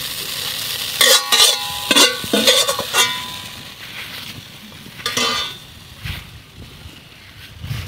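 Metal ladle scraping and clanking against a wok and plate as stir-fried greens are served, with the hot pan still sizzling at first. About five ringing clanks come in the first three seconds, another one about five seconds in, then it goes quieter.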